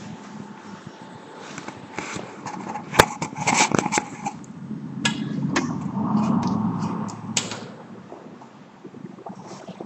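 Hand-cranked Rotafix 88 stencil duplicator turning over, its rollers and drum clicking and knocking, with a rolling rumble that swells about halfway through and fades near the end.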